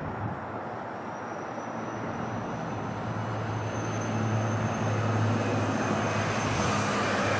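A British Airways Boeing 747's four jet engines on final approach with the landing gear down: a steady rushing engine noise with a low hum and a faint high whine, growing louder from about halfway through as the airliner draws closer.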